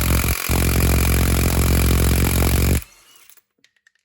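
Stubby cordless impact wrench hammering on a bolt through a step-down socket reducer, a steady rapid rattle that falters briefly about half a second in and cuts off a little under three seconds in. The reducer saps some of the wrench's power, so it takes longer to work the fastener.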